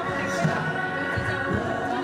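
Line-dance music with a steady beat and a sung vocal, playing over the hall's sound system.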